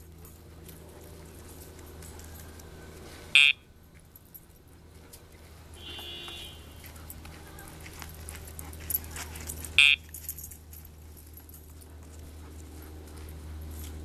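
Short electronic beeps from a Dogtra e-collar's pager, each marking the trainer pressing the pager to signal the dog: two loud beeps, about three and a half and ten seconds in, with a fainter tone between them.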